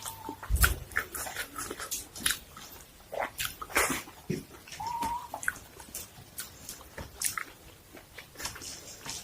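Close-up eating sounds: irregular wet smacks and crisp crunching clicks of chewing fried fish.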